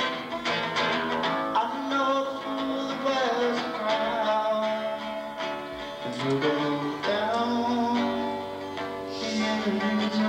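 A man singing to his own strummed acoustic guitar in a live solo performance, the voice holding and bending long notes over steady chords.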